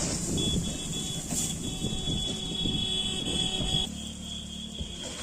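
Heavy diesel machinery running with a low, rough rumble and a steady high whine over it; the rumble settles to a smoother hum about four seconds in.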